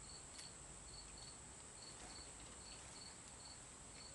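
Near silence with a faint cricket chirping in a regular rhythm, about two to three short high chirps a second, over a steady high hiss.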